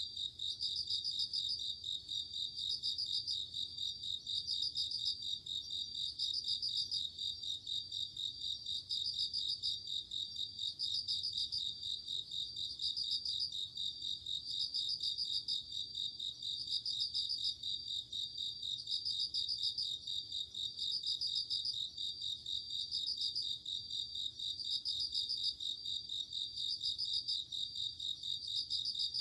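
A night chorus of Japanese bell crickets (suzumushi) and other crickets chirping. A steady high trill runs underneath, and ringing pulsed bursts repeat about every two seconds.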